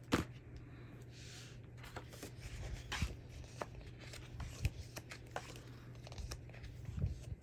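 Pages of a printed art book being opened and turned by hand: paper sliding and rustling, with a sharp tap at the start and a few soft taps after, over a low steady hum.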